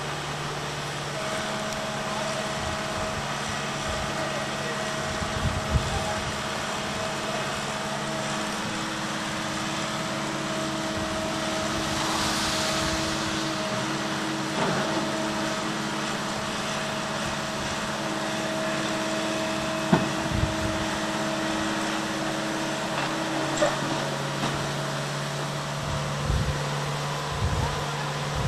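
Muddy floodwater of the swollen river rushing steadily, with the steady hum of a wheeled hydraulic excavator's diesel engine running, some of its tones dropping out and returning as the engine speed shifts. A couple of sharp knocks stand out, one about six seconds in and one about twenty seconds in.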